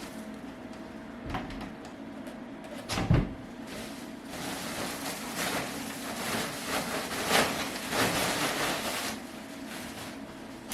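Handling noise while a boxed speaker is being unpacked: a single knock about three seconds in, then several seconds of irregular rustling and scraping of packaging.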